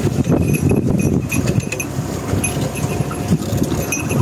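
Wind buffeting the microphone over the rush of the sea around a small boat, a steady low rumble, with a few faint short high chirps.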